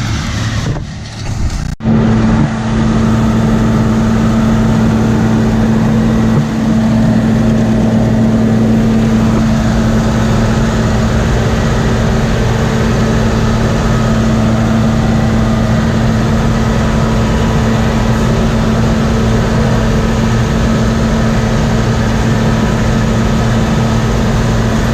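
Large farm diesel engine of the harvest machinery running steadily at working speed, heard close up as a constant drone with a steady hum. About a second in the sound briefly drops away, then a click, and it carries on louder and unchanged.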